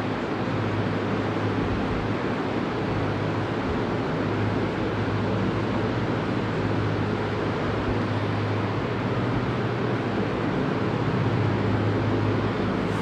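Steady low hum with a constant hiss underneath, unchanging throughout.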